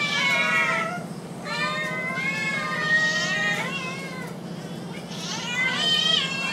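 Several hungry cats meowing for food, long wavering meows that overlap, in three bouts.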